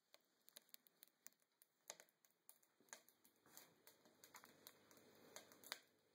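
Very faint, irregular crackling and ticking from a wood-burning rocket stove: scattered sharp clicks a few times a second, with a faint hiss joining in about halfway through.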